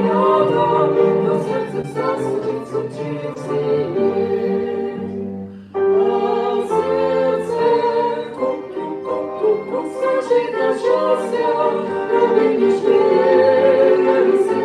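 A duet singing a Russian song with music. The sound fades briefly about five and a half seconds in, then comes back in at full level.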